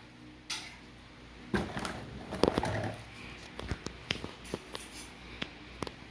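Handling noise from unboxed gear: a couple of dull knocks in the first three seconds, then scattered light clicks.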